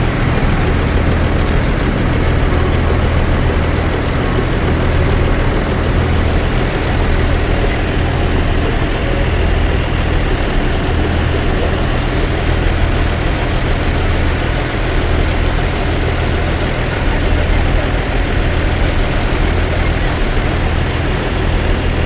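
Large bus engine idling steadily, a low rumble.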